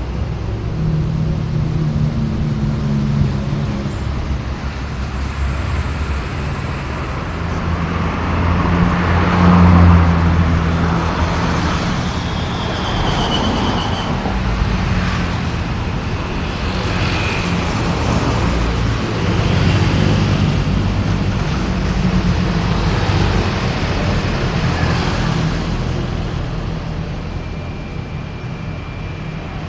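Busy road traffic: cars and heavier vehicles passing continuously, with a steady engine rumble and tyre noise swelling as vehicles go by, loudest about ten seconds in.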